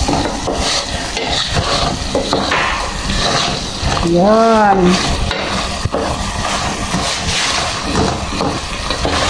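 Wooden spatula stirring and scraping chicken wings and gizzards around an aluminium pot, with the reduced adobo sauce sizzling and frying. The liquid has cooked down nearly dry, so the meat is starting to fry in the pan.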